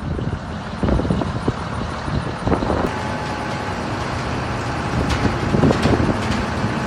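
Self-loading concrete mixer's engine running steadily under a test run, with a few short knocks and clanks from the machine and a thin steady whine for a couple of seconds in the middle.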